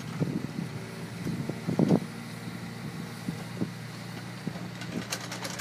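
Hyundai R220LC-9A long-reach excavator's diesel engine running steadily under load as the long boom lowers the bucket to the ground. A burst of louder knocks comes about two seconds in.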